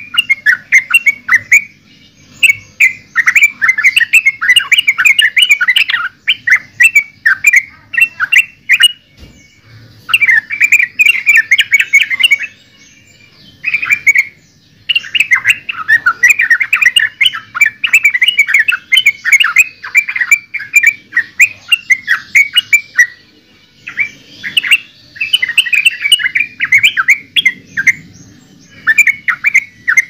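Yellow-vented bulbul (trucukan) singing: fast runs of loud chirping notes in phrases of a few seconds, broken by short pauses.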